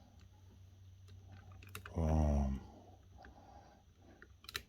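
Small clicks and light handling noise of a collectible figure's plastic packaging as it is worked out of its box, with a short grunt about two seconds in.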